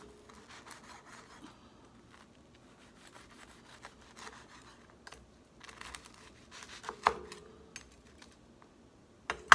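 A knife sawing through a slice of crusty baked garlic cheese bread on a wooden cutting board, in a series of short strokes, with a sharp knock about seven seconds in and a louder one near the end.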